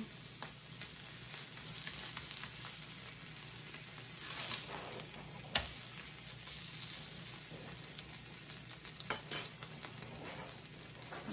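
Tacos frying in hot oil in a pan, with a steady sizzle. A few sharp clicks of a utensil on the pan come about halfway through and, loudest, near the end.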